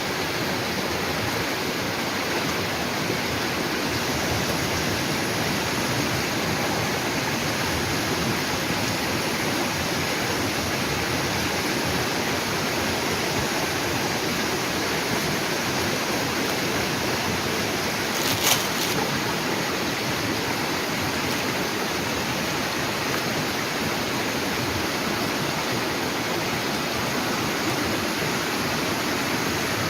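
Steady rushing noise of running water. A faint thin high tone runs above it, and one brief sharp sound comes about 18 seconds in.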